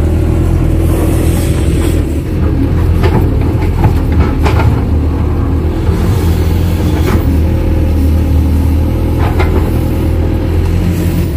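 Kato crawler excavator's diesel engine running steadily as the machine works, with a few short knocks a few seconds apart.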